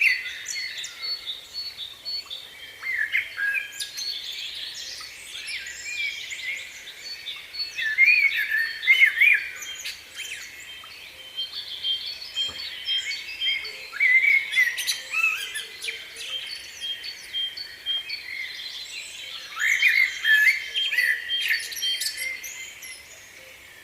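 Several small birds chirping and calling over one another in busy bursts of short gliding notes, with one bird repeating a short high note at an even pace partway through.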